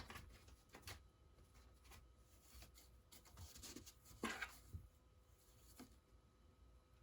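Near silence broken by faint, scattered scratches and rustles, the clearest one about four seconds in.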